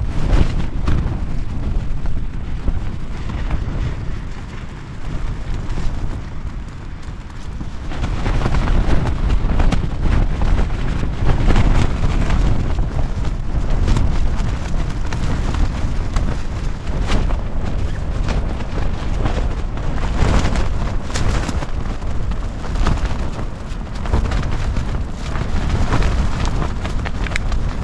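Strong gusting wind buffeting the microphone and tent, a heavy rumble with quick slaps and rattles of tent fabric through it. It eases off briefly, then gusts harder again about eight seconds in.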